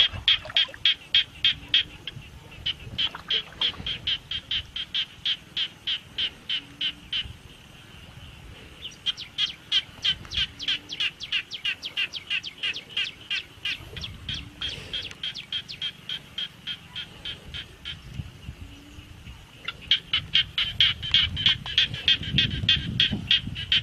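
A frog calling: long runs of rapid, even pulses, about five a second, broken by two short pauses.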